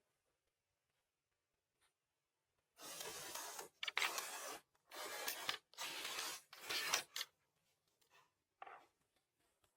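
Five rasping strokes on wood by hand, each lasting under a second, starting about three seconds in, like a tool scraping or sawing across timber.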